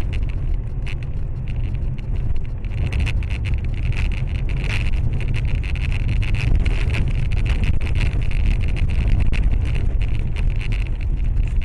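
Car driving on a snowy highway, heard from a dashcam inside the cabin: steady low road and engine rumble, with many sharp clicks and rattles throughout.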